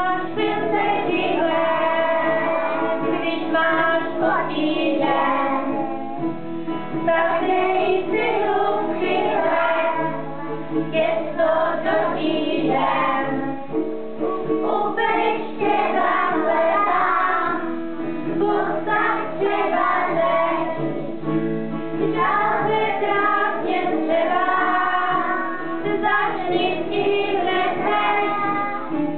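A group of young children singing a song together with a woman, accompanied by a strummed acoustic guitar.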